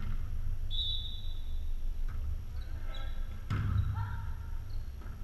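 A volleyball struck by hand, a sharp slap with gym echo about three and a half seconds in. Earlier there is a short high tone about a second in, and players call out now and then.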